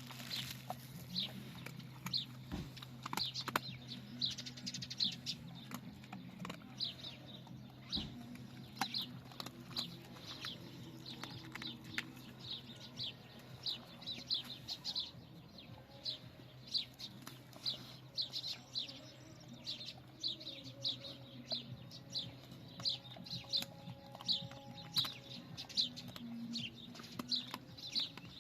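Small birds chirping: short high chirps, one or two a second, over a faint steady low hum.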